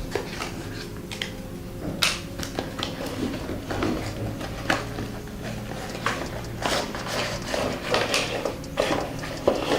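A small cardboard box and its packaging being opened and handled: an irregular run of rustles, crackles and taps, over a faint steady hum.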